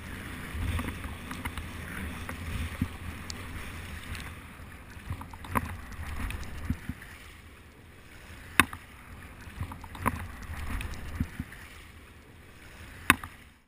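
Wind buffeting the microphone and low surf noise, with a few sharp clicks or knocks now and then.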